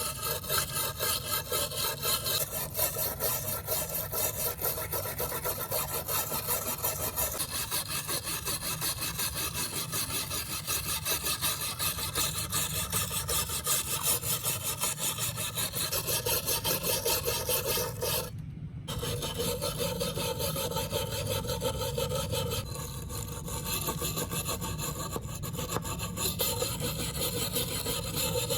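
Rapid back-and-forth strokes of an abrasive worked by hand over a rusty knife blade, taking the rust off, with a short break about two-thirds of the way through.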